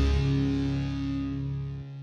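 Background music with guitar, fading out steadily.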